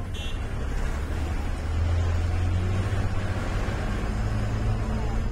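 A bus engine running with road noise: a steady low drone that grows louder about a second and a half in.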